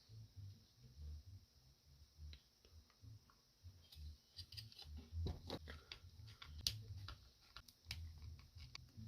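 Faint clicks and ticks of small plastic parts and hand tools being handled while taking apart a small Bluetooth speaker, over soft low handling bumps. The clicks come thicker from about four seconds in.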